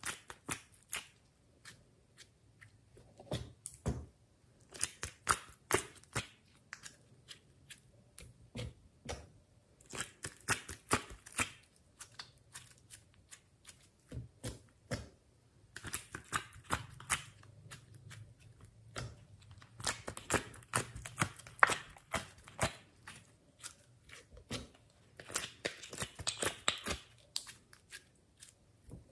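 Glossy slime being squeezed out of plastic molds and pressed by hand, making bursts of small wet clicks and pops with short pauses between.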